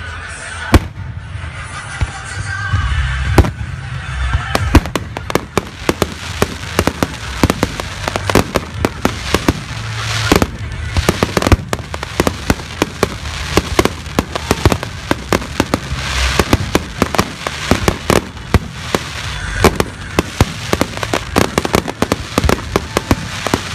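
Aerial fireworks shells bursting in a rapid barrage: a few loud bangs at first, then dense overlapping bangs and crackles from about four seconds in.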